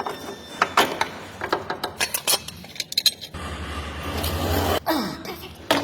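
Light metallic clicks and knocks of parts being handled, then a low mechanical hum that starts a little past the halfway point and lasts about a second and a half.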